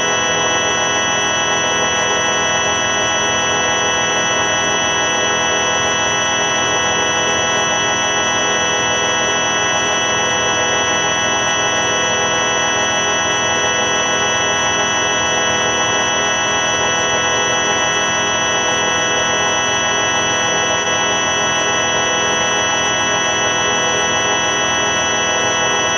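The 4ormulator V5 sound effect, pitch-shifted wrong: a steady organ-like drone of many stacked tones that holds unchanged throughout.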